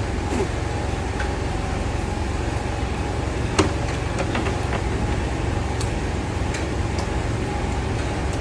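Steady low engine-like hum, with a few faint clicks.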